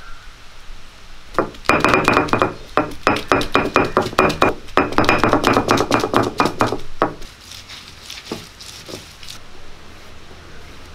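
Ginger and garlic being crushed on a wet stone grinding slab with a hand-held stone roller: rapid stone-on-stone knocks with a ringing clink, about five a second. They start about a second and a half in, run for about five seconds, then thin out to a few scattered knocks.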